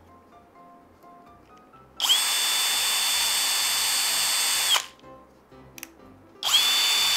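12 V cordless drill running with no load in two bursts, its motor whine spinning up to a steady pitch and winding down: a first run of about three seconds, and a second starting near the end. This is a test run on its battery pack freshly rebuilt with three 18650 cells, and the pack works.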